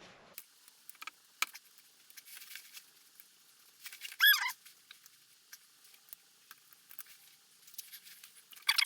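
Scattered light clicks and taps of metal engine parts being handled on a workbench, with one short, wavering high squeak about four seconds in.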